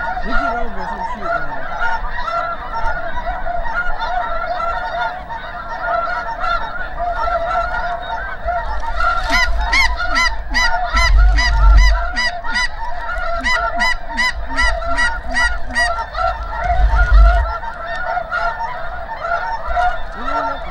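A dense, continuous chorus of snow goose honks from a large flock, many calls overlapping. Sharper, evenly repeated calls stand out for several seconds past the middle. There are two brief low rumbles, one around the middle and one later on.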